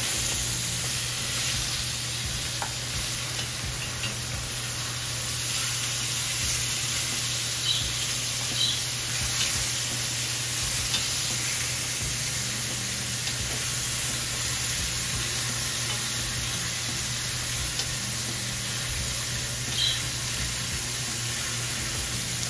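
Beef short ribs sizzling steadily as they brown in hot olive oil in a cast iron Dutch oven. A few light clicks come as metal tongs turn the ribs.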